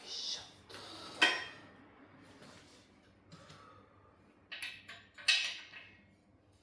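Metal engine parts clinking and clattering as they are handled and set down, with two sharper ringing knocks, one a little over a second in and one about five seconds in.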